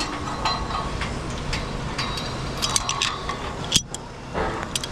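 Sharp metallic clinks and taps of climbing hardware and hands against a wet steel truss tower during a climb down, several in quick succession, the loudest just before the end, over steady background noise.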